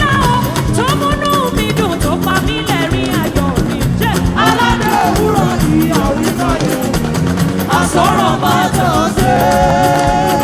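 Gospel worship music: a singer's voice over a band with a steady percussion beat.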